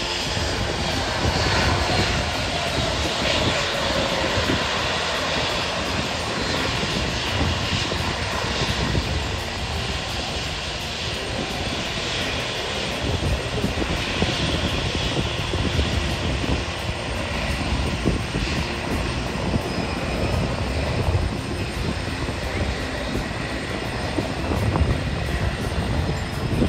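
Airliner's engines running loud and steady as it passes, with a whine that falls in pitch over the first few seconds.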